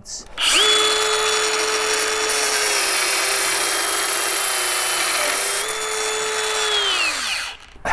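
Hilti AG 6D-22 cordless angle grinder with a brushless motor spinning up to a steady high whine. Its thin cut-off disc cuts through a steel bolt with a grinding hiss, and the pitch drops slightly under load for about three seconds. Near the end it winds down within about half a second on its electronic brake.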